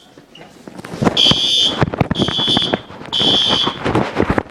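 School fire alarm horns sounding in the temporal-three evacuation pattern: a pause of about a second, then three loud high-pitched blasts, each about half a second long and about a second apart. A clatter of sharp knocks runs underneath the blasts.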